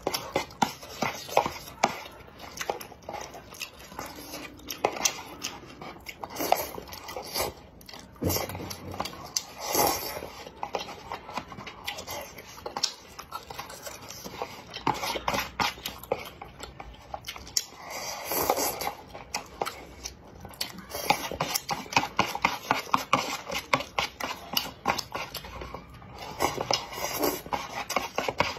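Close-miked eating of spicy cup noodles: steady wet chewing and mouth clicks, with longer slurps about ten seconds in and again near eighteen seconds, and wooden chopsticks scraping the paper cup.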